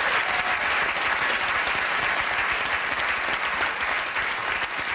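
Studio audience applauding, a dense steady clapping that eases off slightly near the end.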